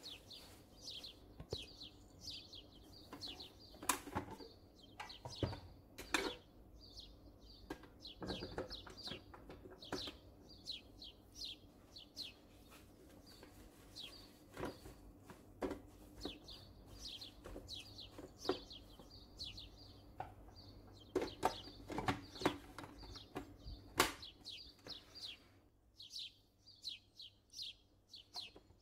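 A small bird chirping over and over, short falling chirps, while leaves rustle and knock as they are handled and pushed into a plastic food processor bowl. Several sharp knocks stand out.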